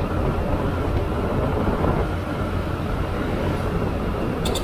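Motorcycle engine running at a steady cruising speed, heard from on the bike with wind and road noise. A short run of sharp ticks comes right at the end.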